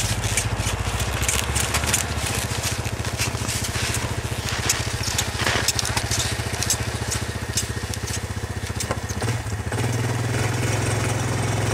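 Quad bike on rubber snow tracks idling steadily, its engine hum growing louder about nine seconds in. Frequent small clicks and crunches sound over it.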